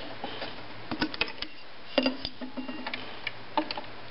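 A few irregular clicks and light knocks from hands handling a Pfaff 139 sewing machine and its sock-darning hoop while the machine is stopped; its bottom thread has run out.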